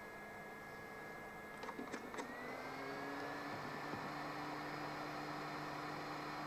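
A few clicks, then a small blower switching on, its pitch gliding up as it spins up into a steady whir with a hum, typical of a hot air rework station starting up to resolder the laptop's BIOS chip.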